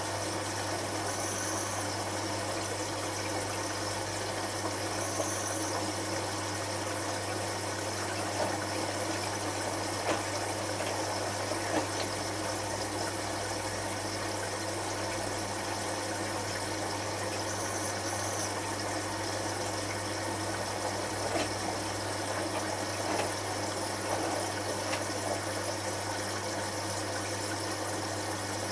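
Hotpoint HF8B593 washing machine in the first rinse of its synthetics cycle: a steady low hum under a continuous wash of water sound, with a few small splashes and clicks.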